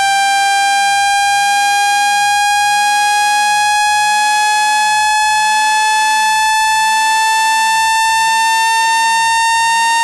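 Synthetic water-ejection tone, played to shake trapped water out of a phone's charging port: a loud, buzzy electronic tone, its pitch rising slowly and steadily.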